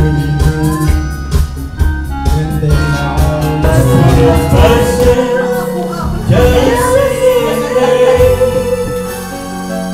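Music with a singing voice over a continuous accompaniment, including a long held note in the middle.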